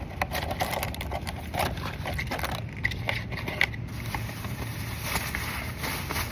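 Blind-box toy packaging being handled and opened: cardboard and plastic crinkling and scraping in quick irregular strokes, over a steady low rumble.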